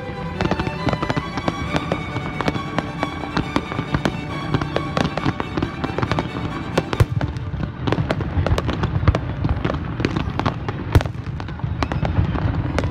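Fireworks display: many shells and crackling effects bursting in rapid, irregular succession. Music with held tones plays underneath.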